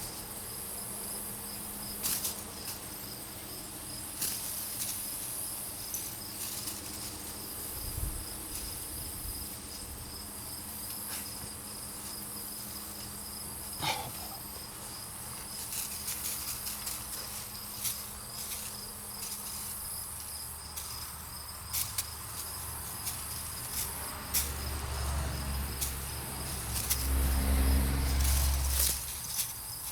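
Insects chirping steadily in a continuous outdoor chorus, with scattered light clicks. A low rumble swells near the end and is the loudest sound.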